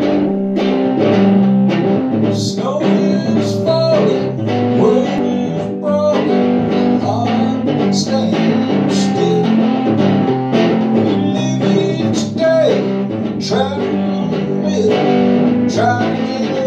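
A man singing an original song to his own guitar accompaniment, the guitar strummed steadily under the vocal line.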